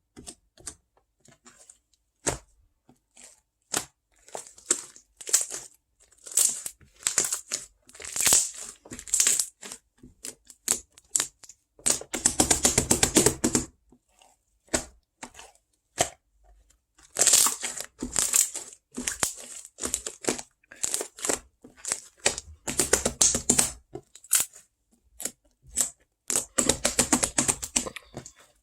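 Close-miked ASMR handling sounds: scattered taps and clicks, broken by several longer bursts of crinkling and tearing. The loudest burst comes about twelve seconds in and lasts nearly two seconds.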